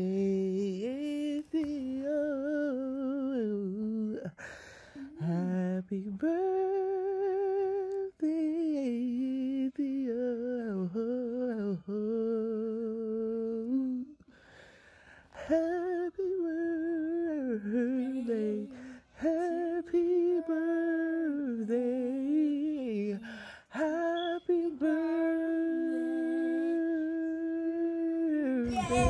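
A woman humming a slow, wordless melody without accompaniment, with wavering long notes and a short break about halfway through.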